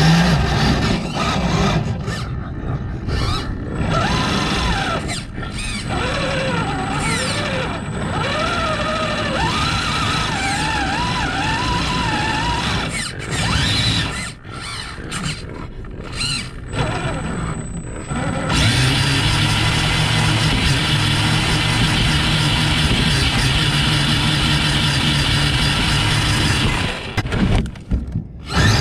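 Electric RC crawler's motor and gears whining, the pitch wandering up and down with the throttle. It then runs louder and steadier for several seconds and cuts back briefly near the end.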